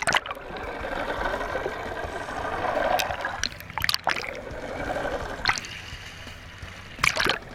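Water bubbling and gurgling as heard through a camera held underwater, muffled, with a few sharp clicks and splashes. A louder splashing cluster comes near the end, as the camera breaks the surface.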